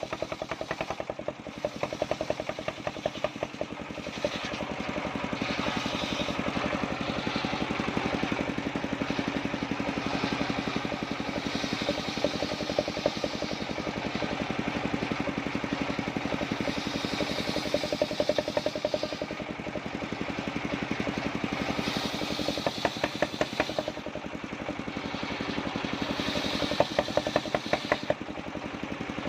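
Engine-driven circular saw running steadily with a rapid, even firing pulse as it rips waru wood into battens. A higher-pitched cutting noise swells and fades every few seconds.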